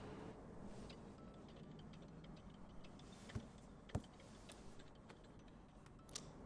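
Near silence with a few light clicks: fingers tapping a smartphone touchscreen, with two sharper taps about three and a half and four seconds in, and one more near the end.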